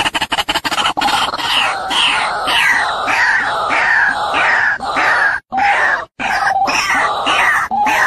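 White-breasted waterhen calling: a fast stutter of notes in the first second, then a loud run of harsh croaking notes about two a second, each dropping in pitch. The run breaks off in abrupt silent gaps about five and a half and six seconds in.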